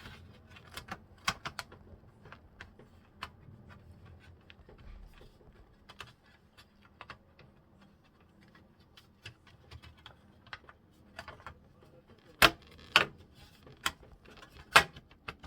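Scattered light plastic clicks and taps of laptop parts being handled and pressed into place in the open chassis, with a few louder sharp clicks near the end.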